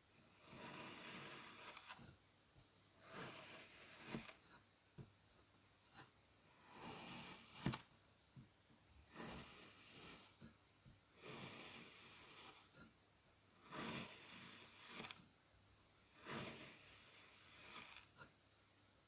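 Kinetic sand being cut and scooped: a dozen or so short, gritty scraping strokes, each under a second, with one sharp click about eight seconds in.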